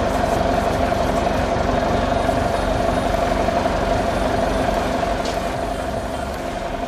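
Heavy vehicle engine running steadily, a fast low pulsing with a constant hum over it, easing off a little near the end.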